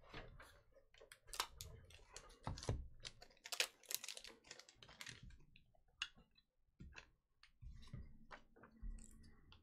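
Quick, irregular light clicks and taps of small hard objects being handled. They come thickly for the first five seconds, then sparser.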